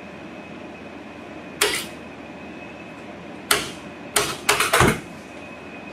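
An empty stapler pressed down again and again, clacking sharply: once, again about two seconds later, then four quick presses in a row. It is out of staples.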